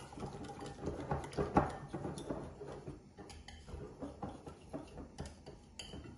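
Small wire whisk beating a thin milk-and-flour batter in a bowl: a fast, uneven run of light clicks and taps as the wires strike the bowl, to break up the lumps.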